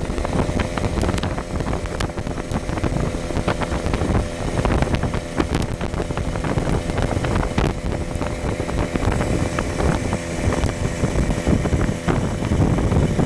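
A small open vehicle driving along, its engine holding a steady drone under heavy wind buffeting on the microphone, with frequent small knocks and rattles.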